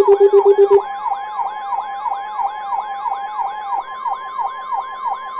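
Layered electronic alert tones from weather-radio and EAS alerting gear: a rapidly repeating falling yelp, about five sweeps a second, over steady alarm tones. About a second in a low pulsing tone stops and a steady tone near 1 kHz, like the NOAA Weather Radio 1050 Hz warning alarm tone, takes over ahead of a warning.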